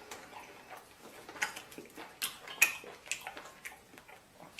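Eating sounds: eating utensils clicking and tapping against a dish in scattered small clicks, the sharpest about two and a half seconds in.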